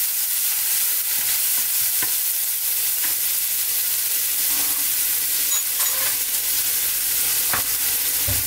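Finely chopped onion and whole spices frying in hot sunflower oil in a stainless steel pan: a steady hiss of sizzling, with a few scattered clicks. A plastic spatula stirs and scrapes the pan at the start.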